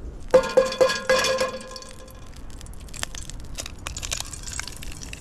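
Metal camp cookware clinking: four or five ringing metallic knocks in quick succession about half a second in, then scattered light clicks and crackles.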